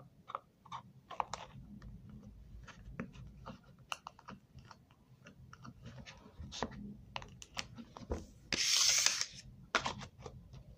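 A plastic slime container and slime being handled: scattered small clicks and taps, with one short, louder rustling scrape near the end.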